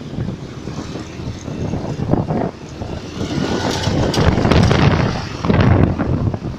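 A bus passing close by, its engine and tyre noise swelling from about three seconds in, loudest between four and six seconds, then easing; no horn melody sounds.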